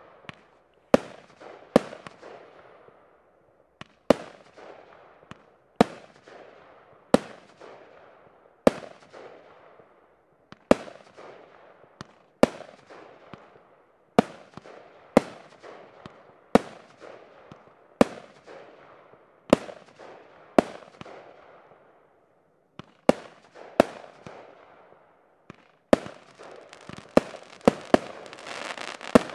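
Bahamas 1 fireworks cake, a 25-shot 20 mm compact, firing: a sharp bang every one to two seconds, each trailed by a fading crackle. Near the end the shots come faster over a dense crackling, the crackling finale salvo.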